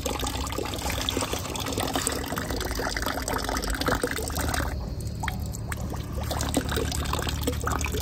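A thin stream of water running from the spout of a small 3 kW instant electric water heater and pouring steadily, the tap opened only a little: the low flow that lets the heater deliver hot water continuously.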